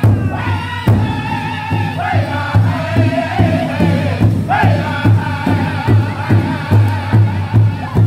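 Powwow drum group singing an intertribal song: several men singing together in high voices over one large shared hand drum struck in unison with drumsticks, at a steady beat of about two strikes a second.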